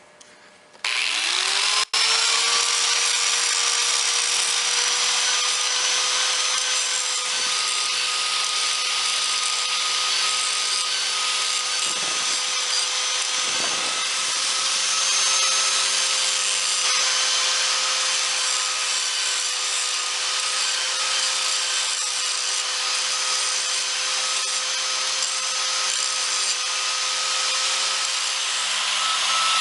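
Handheld electric power tool starting up with a rising whine, then running steadily as it abrades paint off the steel jack stand to bare metal for welding.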